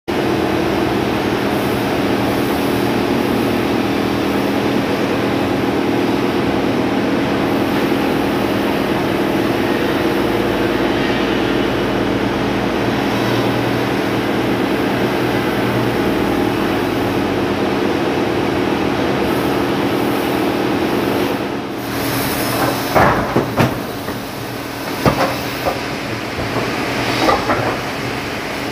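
A forklift's engine running steadily at constant speed. About three quarters of the way through it drops away and is replaced by irregular sharp knocks of wooden blocks set and shifted by hand on a truck bed, with the engine fainter underneath.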